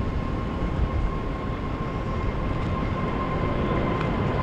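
Motorboat engine running steadily, a low rumble with a constant high whine over it.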